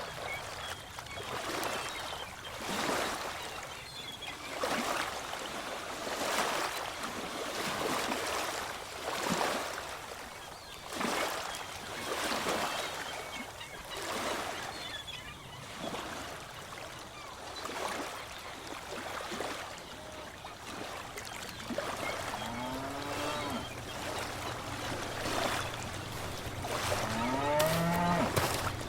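Ocean waves washing onto a shore in repeated swells. Near the end come two drawn-out calls that rise and then fall in pitch, with a low steady hum under them.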